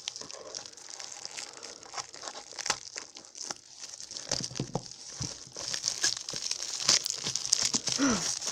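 Plastic packaging crinkling and tearing as it is cut and pulled open by hand, with irregular sharp clicks and crackles.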